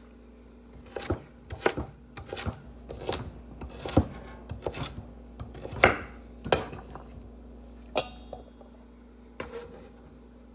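A chef's knife chopping carrots on a wooden cutting board: irregular sharp knocks of the blade through the carrot onto the board, one or two a second. They start about a second in and thin out near the end.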